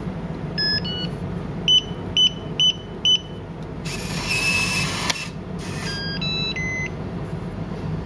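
Yale YDD1212 touchscreen deadbolt keypad: a wake-up beep, then four short beeps as a four-digit PIN is keyed in. Its motor then whirs for about a second as the bolt is driven to unlock, followed by a short rising-and-falling chime of several tones. A steady low hum runs underneath.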